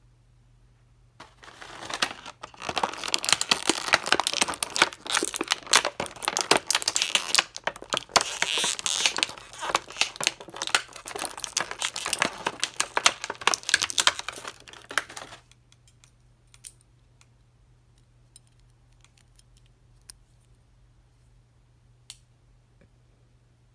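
Clear plastic bag crinkling and crackling for about fourteen seconds as hands work it open, then stopping suddenly; afterwards only a few faint clicks.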